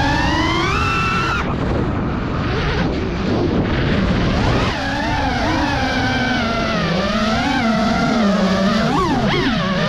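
An engine revving: its pitch climbs in the first second, and after a rougher, noisier stretch it keeps rising and falling with the throttle.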